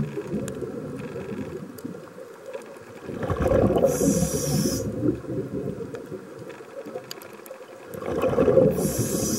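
Scuba diver breathing through a regulator underwater: a hiss from the regulator and a rumbling gush of exhaled bubbles, in two breaths about five seconds apart.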